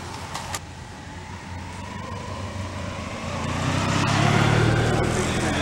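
Motorcycle engine approaching and passing close by, growing louder to a peak about four to five seconds in.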